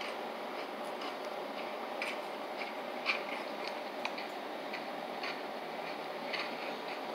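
Tinny, steady noise with light, irregular clicks about every half second to second, played back through a tablet's small speaker.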